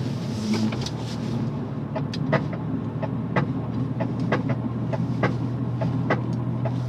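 1998 Honda Civic driving with a steady low engine and road drone, over which come repeated sharp clicks, about two a second, mostly from about two seconds in. The owner takes the clicking, heard when turning left, for a failing CV joint.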